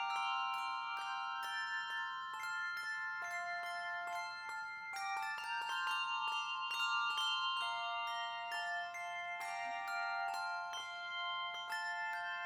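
Instrumental music of quick, ringing, bell-like struck notes, all high-pitched, overlapping as each note rings on.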